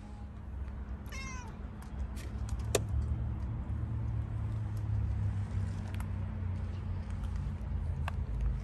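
A street cat gives one short meow about a second in. A sharp click follows near three seconds, with a few fainter clicks later, over a low rumble.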